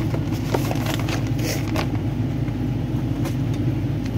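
Steady low mechanical rumble inside a motorhome, with a few short crinkles and crackles of a cardboard snack box and its jerky packet being handled.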